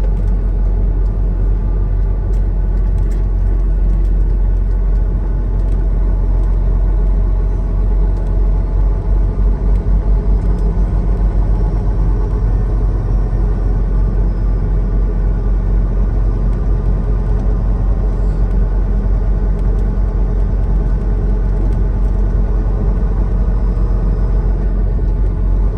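Semi-truck's diesel engine running, a steady low rumble.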